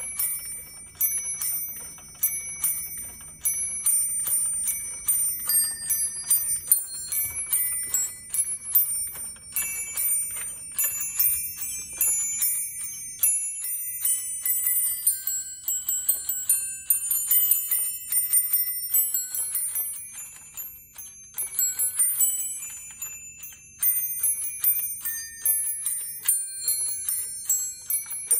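Animated Christmas bell toy: teddy-bear figures swing mallets against a column of small brass bells, picking out a tune in quick, high, ringing notes. It starts suddenly.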